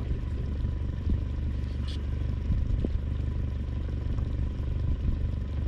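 Wind buffeting the microphone in a steady low rumble, with a few faint ticks and a faint steady hum.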